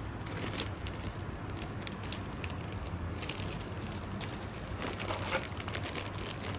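Irregular crackling and clicking of small kit parts and their packaging being handled, over a steady low hum.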